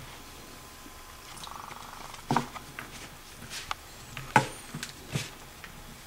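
A hand mixing and squeezing wet flour into paratha dough in a bowl: soft, irregular squishing with a few short sharp taps, a handful of times, as fingers press the dough against the bowl.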